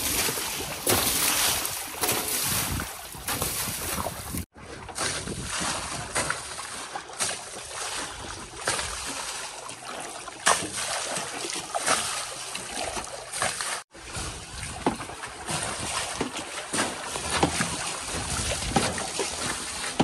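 Water being thrown by hand onto a tractor and a backhoe loader and splashing off the bodywork, with irregular repeated splashes and sloshing of shallow water. The sound breaks off abruptly twice.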